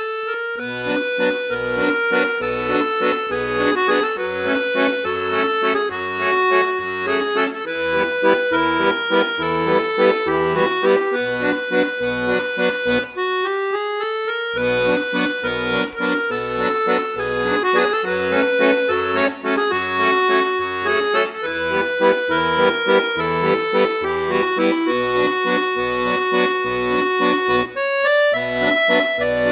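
Chromatic button accordion playing a waltz: a melody over a steady pulse of bass notes and chords, with a quick rising run of notes about halfway through.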